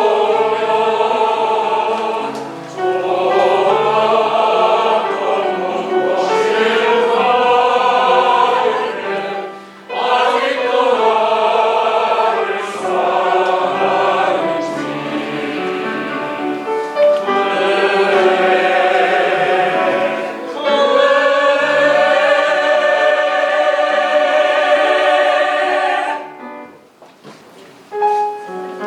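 A group of voices singing a Korean art song (gagok) together in chorus, phrase after phrase of sustained sung notes. The singing stops a few seconds before the end, leaving a brief lull.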